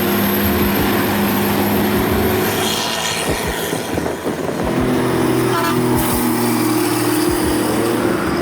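Heavy machinery engine running steadily, with some rattling.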